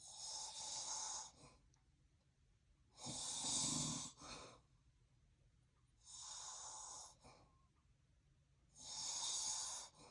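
A sleeping man with sleep apnea snoring, four breaths about three seconds apart. Each is a breathy hiss lasting about a second, and the second one, a few seconds in, is the loudest, with a low rattling snore under it.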